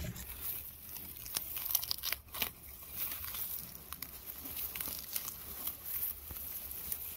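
Lemongrass stalks, dry grass and leaves rustling and crackling as a hand pushes into the clump and grips the stalks at the base, with a few sharp cracks in the first few seconds.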